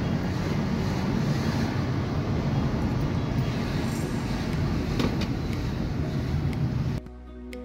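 Steady car engine and tyre road noise heard from inside the cabin while driving along a street. It cuts off abruptly to something much quieter near the end.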